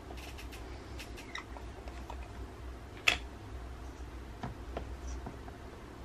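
Light clicks and taps of small objects being handled, with one sharper click about three seconds in, over a low steady hum.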